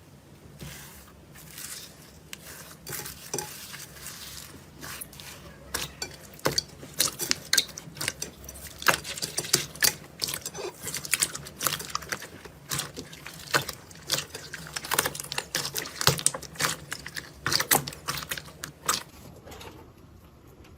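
Slime being worked by hand, making many quick sticky clicks and pops. They are sparse at first, come thick and fast from about six seconds in, and thin out near the end.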